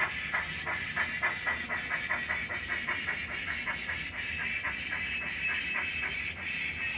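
Model steam locomotive's sound decoder playing steam chuffs through its small speaker over a steady hiss, about four to five chuffs a second, slowing in the second half as the engine runs.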